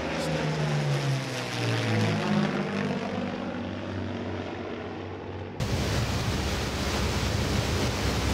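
Avro Lancaster's four Merlin V-12 engines droning in a low flyby, their pitch falling as the bomber passes overhead. About five and a half seconds in, it cuts suddenly to a louder, steady rush of propeller-engine and wind noise.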